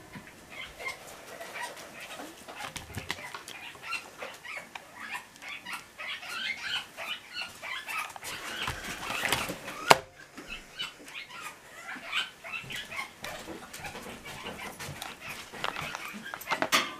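A household pet calling over and over in short, scattered cries, with a single sharp knock about ten seconds in.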